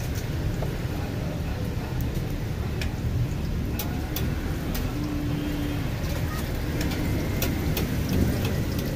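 Street-food stall ambience: a steady low rumble with scattered sharp ticks and crackles while a stuffed martabak fries in oil on a large flat iron griddle.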